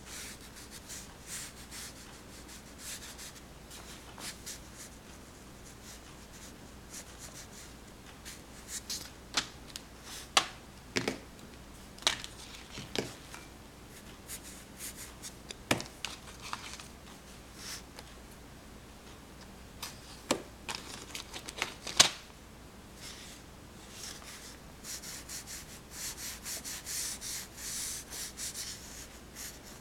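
Pastel crayon scratching and rubbing across paper in short strokes, with a few sharp clicks between about 9 and 22 seconds in. The scratching gets denser and louder near the end, as a dark outline is pressed on.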